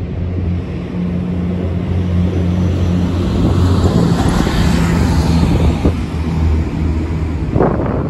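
A truck driving past close by: a steady engine hum with tyre and road noise that builds to a peak about halfway through and fades near the end.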